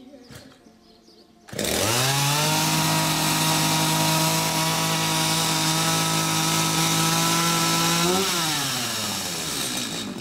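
Two-stroke chainsaw starting up about a second and a half in and running at a steady high speed for several seconds, then dropping in pitch and dying out near the end.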